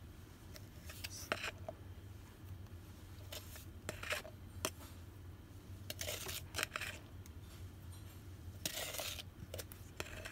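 Red plastic measuring scoop scraping and knocking inside a plastic jar of pink dental die stone powder as level scoops are taken out and tipped into a mixing bowl. Irregular short scrapes and clicks, with longer scrapes about 4, 6 and 9 seconds in.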